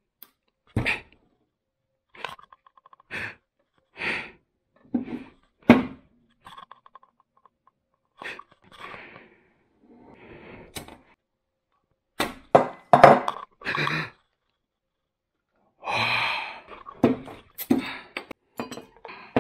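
A series of separate short knocks, thuds and clatters of objects being handled and set down on a wooden desk, among them a glass beer bottle. They come unevenly, with a louder run a little past the middle.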